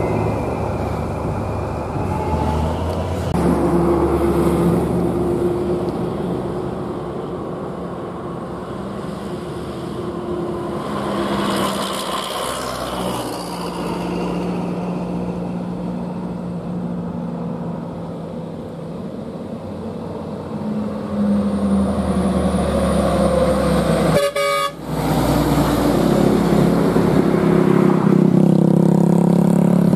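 Heavy diesel trucks driving past on a highway, engine drone and tyre noise, among them a FAW JH6 tractor unit hauling a Hitachi excavator on a lowbed trailer; a vehicle horn sounds. The sound cuts out briefly about three-quarters of the way through.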